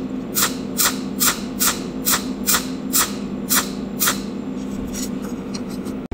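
Cold welding machine firing repeated pulses as it tacks filler wire into a gap in a tube joint: a sharp snap a little over twice a second, nine in all, stopping about four seconds in, followed by a few fainter ticks. A steady low hum runs underneath.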